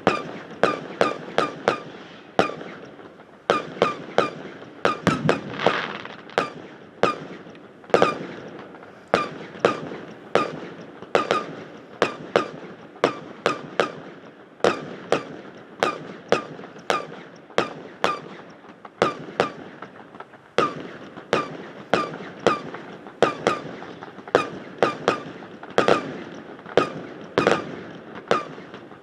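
Fireworks display: a rapid, continuous barrage of aerial shell bursts and bangs, several a second, each with a short ringing echo that sounds odd because it reflects off a metal hangar.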